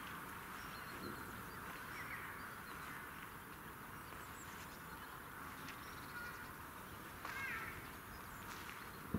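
Faint outdoor ambience with a steady hiss, broken by a few short bird calls, once about two seconds in and again more loudly about seven and a half seconds in.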